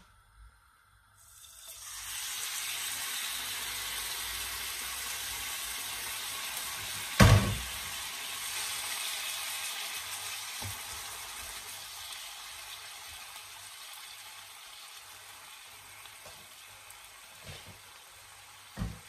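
Marinated boneless chicken pieces frying in a hot non-stick wok: a steady sizzle starts about a second in and gradually fades. A single sharp knock comes about seven seconds in.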